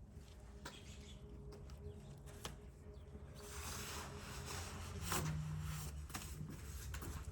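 Faint hand-handling noises while screen string is being tied to a spring anchor: a few light clicks, then rustling from about three seconds in, with a sharper click a little after five seconds.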